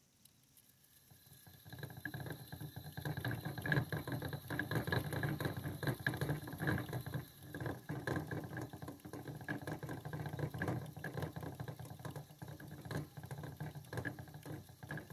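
A Chinese dwarf hamster running in a plastic exercise wheel. The wheel spins with a continuous fast rattle and a low rumble, under a thin steady high tone. It starts up about a second or two in.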